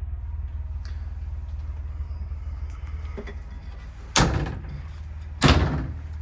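Two sharp bangs of doors being shut, about four seconds in and again a second and a half later, each dying away briefly, over a steady low hum.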